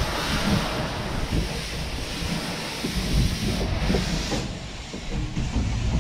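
Steam locomotive letting off a loud hiss of steam over a low rumble; the hiss cuts off sharply about four and a half seconds in.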